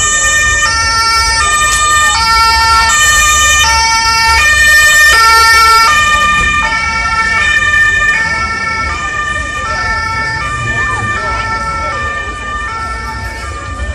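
German ambulance's two-tone siren (Martinshorn), high and low notes alternating about every 0.7 s. It grows loudest as the ambulance passes close about five seconds in, then fades as it moves away.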